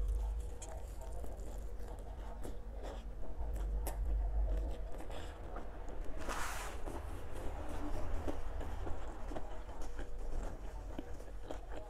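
Close-miked chewing of a big mouthful of lettuce-wrapped rice-noodle salad: a run of small wet clicks and crackles from the mouth. There is a brief hiss about six and a half seconds in.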